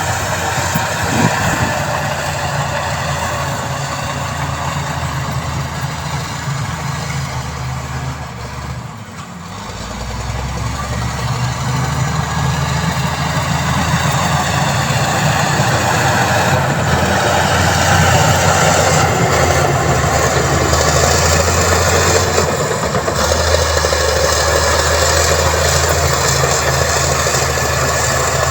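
Heavy diesel engine of construction machinery running. It eases off about nine seconds in, then builds up again and holds steady.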